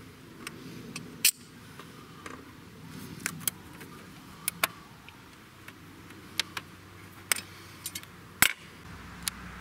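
Scattered sharp metallic clicks and clinks from pliers working the hose clamps and fittings on a car's engine intake pipe. There are about a dozen clicks at uneven intervals, and the loudest comes near the end.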